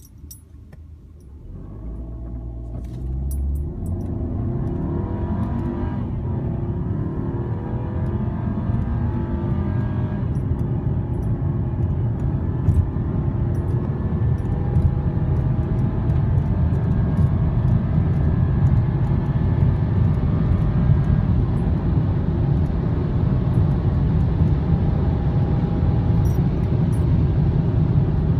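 2015 Volkswagen Passat Sport accelerating hard from a standstill to about 100 mph, heard from inside the cabin. The engine note climbs and falls back at upshifts in the first ten seconds, then climbs slowly as wind and road noise build.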